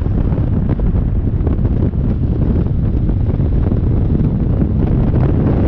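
Heavy wind buffeting on the microphone of a camera held out at a moving car's window at speed, over a steady low rumble of road and engine noise.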